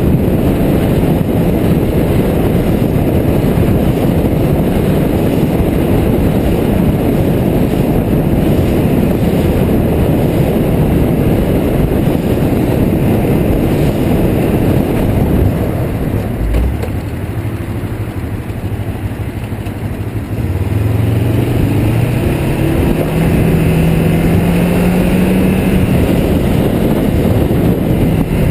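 Wind rushing over the motorcycle-mounted microphone at freeway speed, easing off about 16 seconds in. About 21 seconds in, the motorcycle's engine is heard accelerating, its pitch rising and then holding steady.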